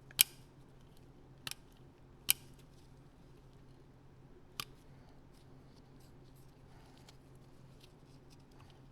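Four sharp, isolated clicks of a carburetor's small parts being handled, spread over the first few seconds, over a faint steady hum.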